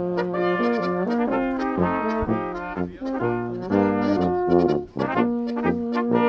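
A small Austrian folk brass ensemble playing a lively tune: a tuba bass line changing notes in rhythm under a trumpet and flugelhorn melody.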